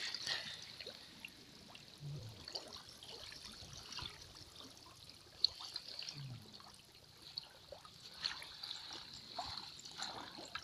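Feet wading through swamp water: soft irregular splashes and trickling as the water is stirred.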